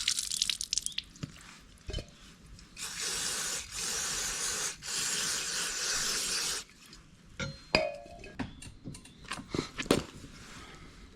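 Aerosol spray can hissing in bursts, a short one at first and then a longer spray of about four seconds with a brief break, as the brake parts are cleaned. After it come a few sharp clicks and knocks of parts being handled.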